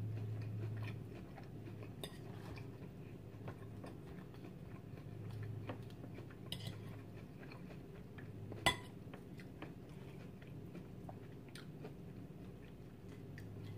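Close-up chewing and biting of a salad with croutons and candied walnuts, with soft crunches. A metal fork clicks lightly against the plate at scattered moments, with one sharper click a little past halfway. A low steady hum sits underneath.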